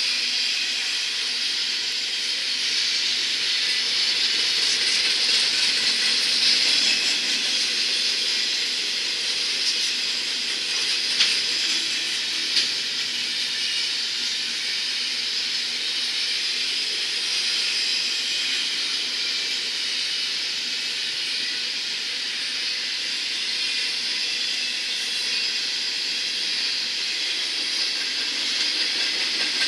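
Double-stack container train's well cars rolling past: a steady hiss of steel wheels on the rails. About a third of the way through come two sharp clicks a second and a half apart.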